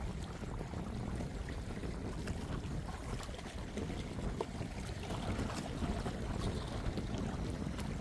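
Sea and wind: a steady, low rush of waves with wind buffeting the microphone.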